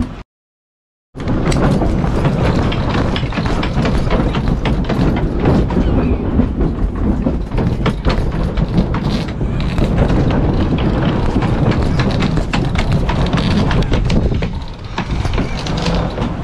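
Strong wind and sea noise aboard a sailboat under way: a steady rush with a low rumble of wind on the microphone and a dense clatter of rattling from the boat's cockpit enclosure and gear. It starts abruptly about a second in, after a moment of silence.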